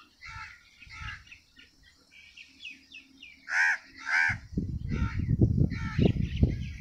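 Crows cawing, two loud caws about halfway through, among smaller bird chirps. From about two-thirds of the way in, a dense low rumbling noise with many small knocks sets in under the birds.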